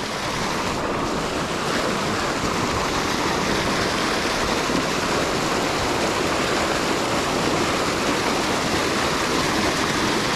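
Rain-swollen creek water rushing and churning as whitewater spills past a concrete edge, a steady, noisy rush with no breaks.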